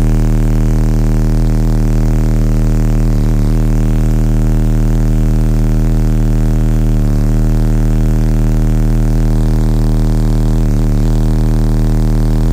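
A pair of DB Drive WDX 12-inch car subwoofers plays one loud, unbroken deep bass tone, held at a steady pitch with a buzzy stack of overtones above it.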